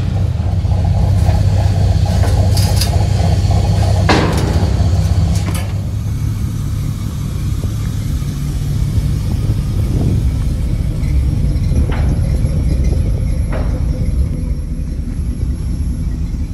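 A vehicle engine idling: a steady, loud, low rumble, with a few brief knocks or rustles over it.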